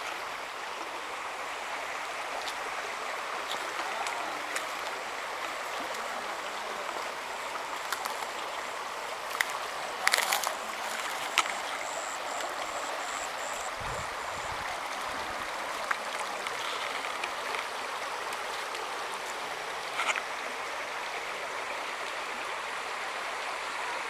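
Shallow stream running over a rocky bed: a steady rush of water, with a few small clicks and a brief knock about ten seconds in.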